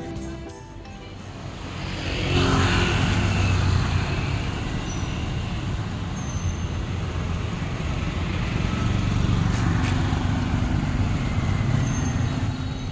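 City street traffic: cars, motorbikes and tuk-tuks passing with a steady engine and tyre rumble.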